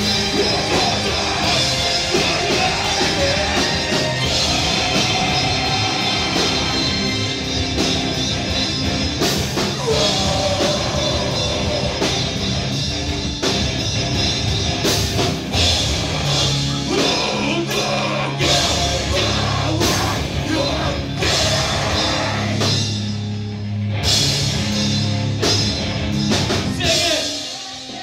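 Live rock band playing loud: electric bass guitar, drum kit and vocals into a microphone. The music dips briefly near the end.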